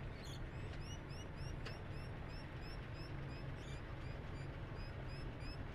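Loaded sugar cane bins of a narrow-gauge cane train rolling slowly past with a steady low rumble, over which runs a quick series of short rising squeaks, about three a second.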